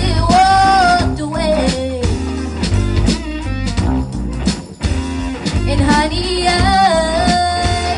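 Live rock band playing: a female singer's lead vocal, holding long notes near the start and again near the end, over electric guitars, bass guitar and a drum kit.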